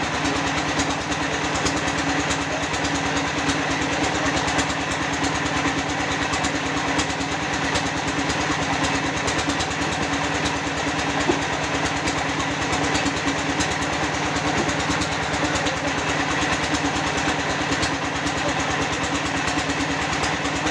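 Concrete block press machine running steadily on a trial run after being adjusted, its motor-driven vibrator giving a fast, even shaking.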